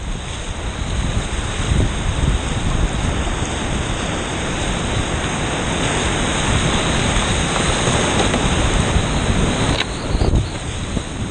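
Continuous rushing of whitewater river rapids churning close around a canoe running through them.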